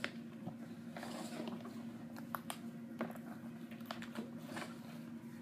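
Clear plastic tray of a Pokémon card box being handled: scattered light clicks and crinkles over a faint steady hum.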